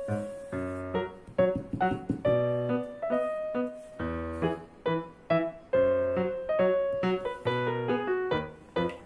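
Background piano music: a light tune of struck notes over a regular bass line.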